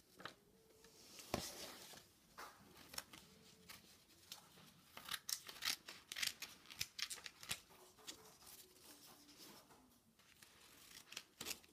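Scissors cutting through paper covered with clear tape: faint, irregular runs of short snips, with one sharper click about a second in.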